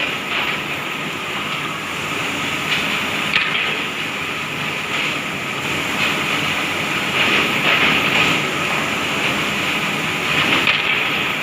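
Industrial woodworking machinery on an MDF board line running steadily, with a few light knocks here and there.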